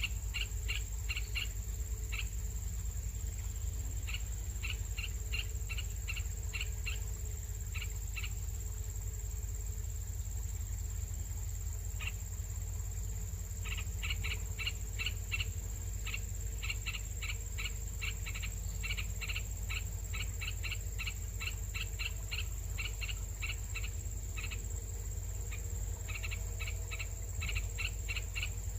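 A bird chirping in quick runs of short, evenly spaced notes, about four a second, pausing now and then. Underneath are a steady high-pitched hiss and a low rumble.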